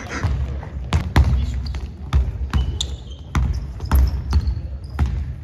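Basketball dribbled on a wooden gym floor, about eight sharp bounces at an uneven pace, with a couple of short sneaker squeaks about three and four seconds in.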